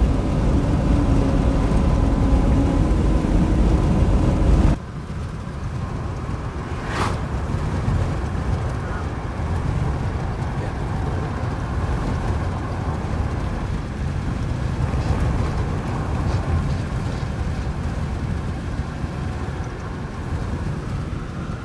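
Road and engine noise inside a moving car, a steady low drone with a faint hum. About five seconds in it cuts off abruptly to a quieter steady low rumble, with a single sharp click a couple of seconds later.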